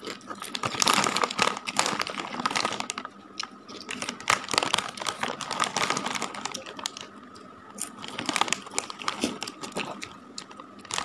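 A foil-lined Lay's potato chip bag crinkling and crackling as it is handled and rummaged, with crunching of chips mixed in.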